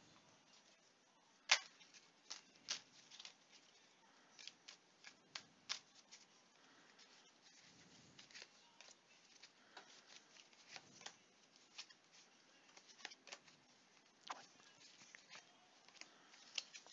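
Tarot and oracle cards handled by hand, shuffled and laid down: a string of irregular soft clicks and slaps of card on card, the sharpest about a second and a half in.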